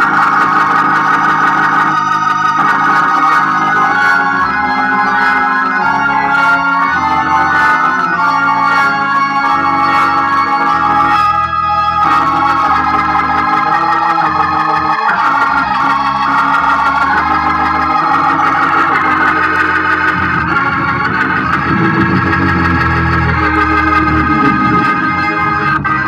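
Hammond organ played through a Leslie 122 speaker cabinet: sustained chords over a moving bass line, played at a steady level. This is a sound check of the Leslie 122 amplifier running on a jumped-in power transformer.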